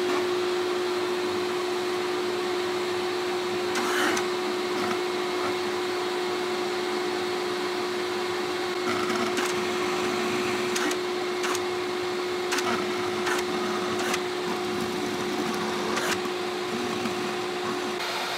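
Vacuum cleaner running steadily, drawing air through a 3D-printed blastgate. From about four seconds in there is a series of sharp clicks as the gate's lever is switched from inlet to inlet and snaps into its detents.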